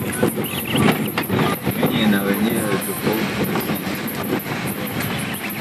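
A car driving slowly over a rough dirt road, heard from inside the cabin, with the body rattling and knocking over the bumps. A voice is heard briefly in the middle.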